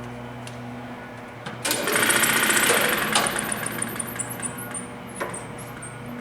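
Oliver scroll saw running with a steady hum, its blade stroking up and down at 865 strokes a minute. About a second and a half in, a louder, harsh rasping lasts about a second and a half as the blade cuts through plastic, then eases back with scattered clicks.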